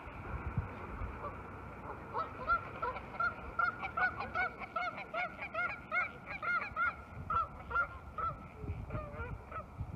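Canada geese honking, a rapid run of calls, two or three a second, that starts about two seconds in, is busiest in the middle and thins out near the end.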